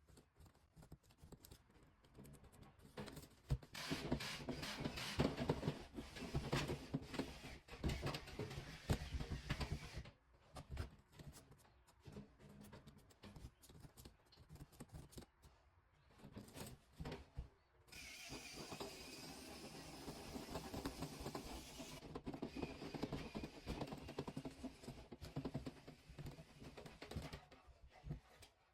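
Scratching, rustling and clicking of old, compacted lint being scraped and pulled out of a clogged dryer vent duct. A steady hiss joins in for about four seconds past the middle.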